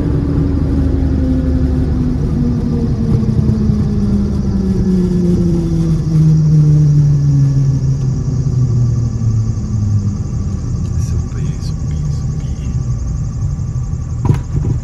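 Cockpit noise of a Diamond DA62 rolling out after landing: the steady drone of its twin Austro diesel engines and propellers, with a tone that falls in pitch over about ten seconds as the aircraft slows, then settles. A sharp click sounds near the end.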